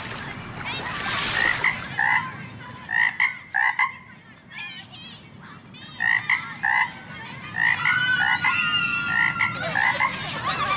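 A frog croaking in short calls, often in pairs, repeated again and again with a quieter stretch about four to six seconds in. A long, high squeal glides over the croaks about eight seconds in.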